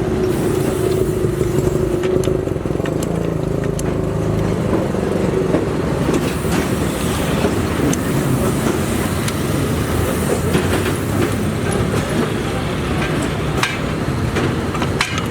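Steady road traffic noise from passing vehicles, with scattered light clicks.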